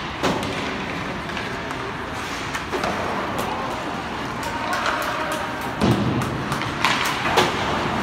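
Ice hockey play on a rink: scattered sharp clacks and thuds of sticks, puck and boards over a steady hum of arena noise, with the loudest knocks in the last few seconds.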